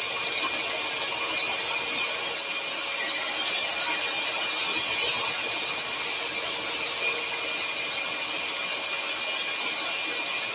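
Axminster Trade AT406SS scroll saw running steadily, its blade cutting through a thin yew panel, with the workshop dust extractor running alongside.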